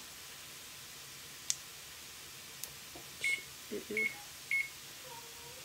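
Electric range's keypad beeping as its buttons are pressed to set a one-minute timer: three short, high beeps about two thirds of a second apart in the second half.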